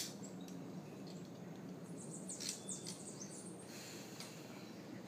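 Quiet ambience with a few faint, high, falling bird chirps clustered about halfway through, in a lull between howler monkey howls.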